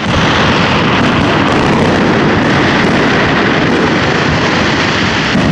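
Aerial fireworks bursting in a dense, unbroken barrage, overlapping bangs with sharp cracks standing out from time to time.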